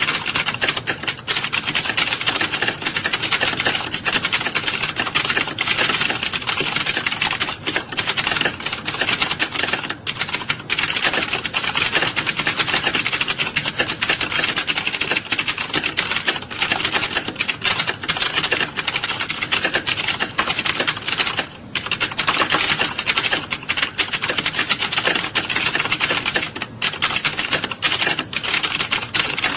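Many keyboards clattering at once as a roomful of students type at speed: a dense, continuous patter of key clicks with no pauses beyond a few brief dips.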